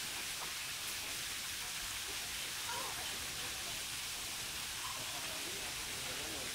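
Steady, even outdoor background hiss, with a few faint, brief wavering sounds about three and five seconds in.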